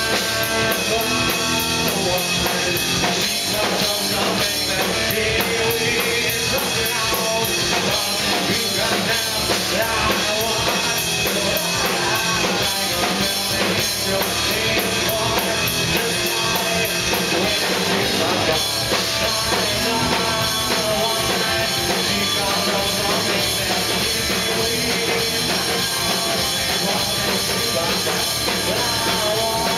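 A rock band playing live: electric guitar, drum kit and a male singer into a microphone, loud and continuous, with a fast, even cymbal beat through the first half.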